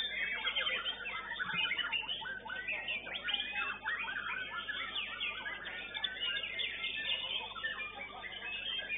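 White-rumped shamas singing: a dense, unbroken run of quick, varied whistles and chirps.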